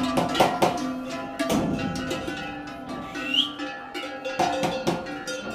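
Large cattle bells on the necks of walking steers, clanking irregularly as the animals move. Each strike rings on for a moment, and a short rising whistle-like chirp sounds about three and a half seconds in.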